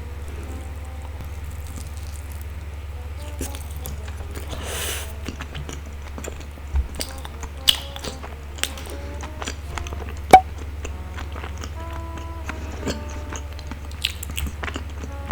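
Light background music over a steady low hum, with scattered short sticky clicks and smacks from glutinous rice dough; one sharper click comes a little past the middle.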